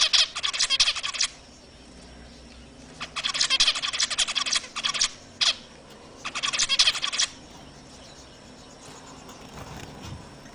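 A group of caged zebra finches calling in bursts of rapid, high chatter, with brief gaps between bursts. The birds fall quiet for the last few seconds.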